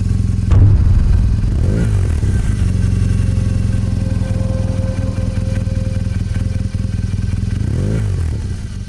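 Motorcycle engine running steadily, with a sharp hit about half a second in and a brief rev near two seconds and again near the end.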